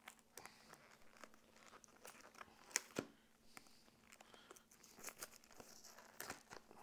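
Faint crinkling and tearing of a card deck's plastic shrink wrap being pulled off, a run of small crackles with one sharper snap about three seconds in.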